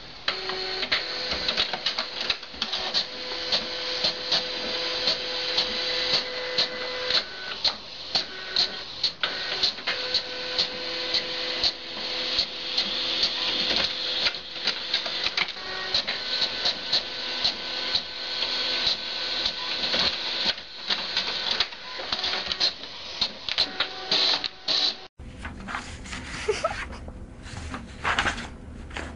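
A printer running: its mechanism whirs in steady tones that start and stop, with rapid clicking throughout. About 25 seconds in, this cuts off abruptly and is followed by a quieter stretch of scattered clicks.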